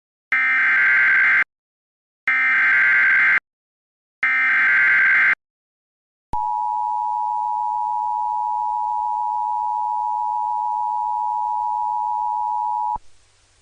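Emergency Alert System activation: three bursts of SAME header data, a harsh buzzy warble about a second each, followed by the two-tone EAS attention signal held steady for about six and a half seconds before it cuts off.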